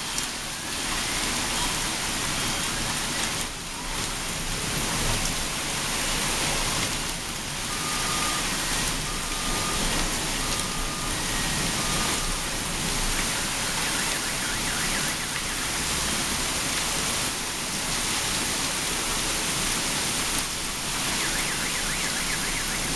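Heavy rain mixed with hail pelting a street and parked cars: a steady, dense hiss. Four faint short beeps sound about halfway through.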